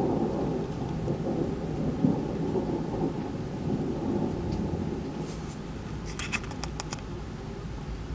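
Rolling thunder rumbling low, strongest at the start and slowly easing off. About six seconds in comes a quick run of sharp clicks.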